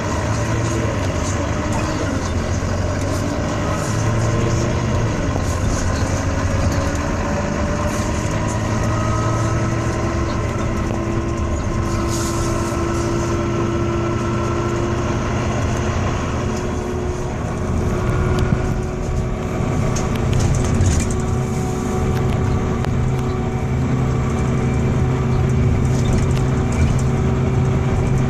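Volvo B9TL double-decker bus running, its engine drone overlaid by a strange wailing tone that rises in pitch over the first several seconds and then holds steady.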